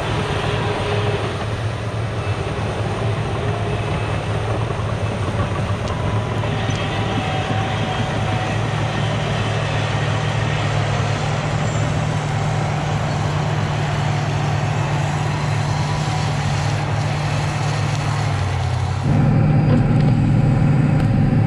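Caterpillar 973C track loader's diesel engine running steadily under work. About nineteen seconds in it becomes louder and fuller, heard from inside the cab.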